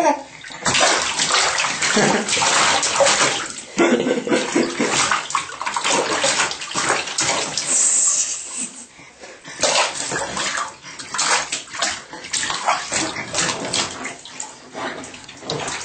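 A baby splashing water in a plastic infant bath tub, in irregular bursts of splashes.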